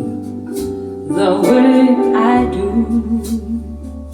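A recorded song played back through Dali Epicon 8 loudspeakers: a sung phrase about a second in over guitar and piano, then a short repeated instrumental figure as the music grows softer.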